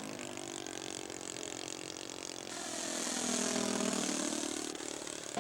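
Engine of a radio-controlled scale model biplane running in flight. Partway through, its pitch dips and then climbs again as it grows louder.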